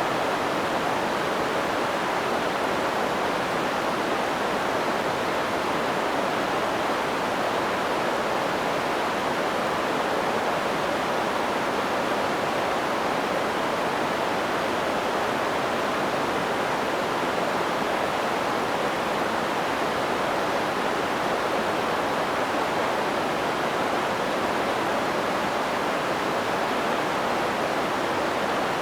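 Water pouring over a small, low weir, a steady, even rushing.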